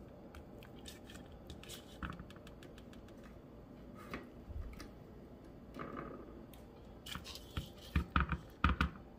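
Hands arranging raw tilapia pieces on a bed of sliced ginger, onion and tomato in a wok. Scattered light clicks and scratches build to a cluster of louder soft thumps and knocks near the end as the fish is pressed into place.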